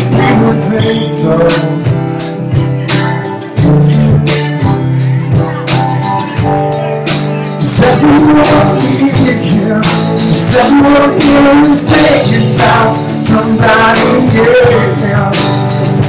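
Live rock band playing a song: two guitars over a drum kit keeping a steady beat, with a voice singing.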